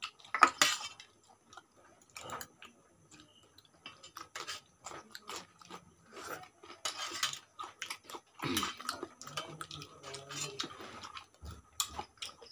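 Mealtime sounds: metal spoons clinking and scraping against a steel serving bowl, mixed with people chewing food, as scattered short clicks and brief noisy stretches.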